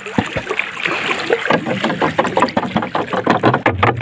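Water lapping and slapping against an outrigger boat's hull, with a quick run of taps through the second half.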